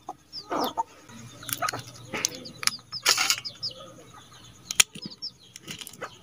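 Snail shells being cracked open by hand, a series of short sharp cracks and crunches, one louder crack near the end. Small birds chirp in the background.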